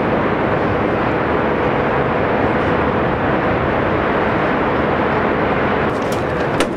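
Steady mechanical drone with a faint constant whine, with a sharp click near the end.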